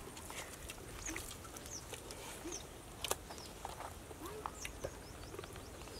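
Faint open-air rural ambience: scattered short chirping calls and small clicks over a low steady rumble.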